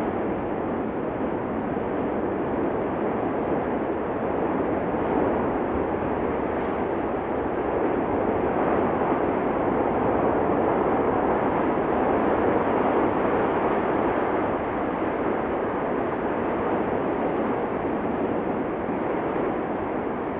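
Steady, continuous rushing noise from the Cumbre Vieja fissure eruption, swelling slightly about halfway through.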